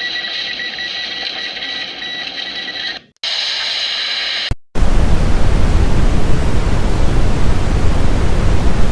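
Steady hiss with a faint high whine, broken by two brief dropouts about three and four and a half seconds in. Then loud, even white-noise static, like a dead radio or TV channel.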